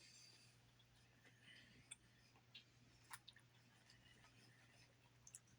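Faint chewing of salad, with a few soft scattered mouth clicks over a low steady hum.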